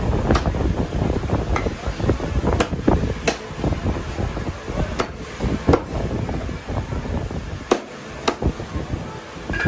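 Meat cleaver chopping a raw chicken on a round wooden butcher's block: a string of sharp knocks, unevenly spaced, over a steady low background noise.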